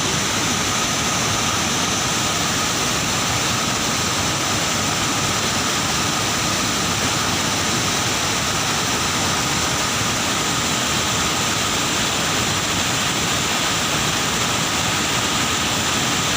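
Waterfall's steady roar of rushing water, even and unbroken.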